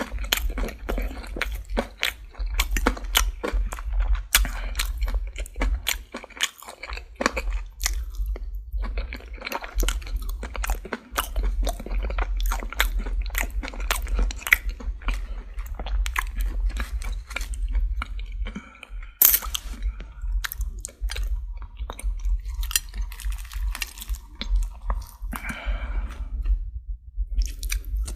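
Close-miked chewing of Popeyes fried chicken: a dense, irregular run of sharp crunches as the crispy breaded crust breaks between the teeth, with a short pause near the end.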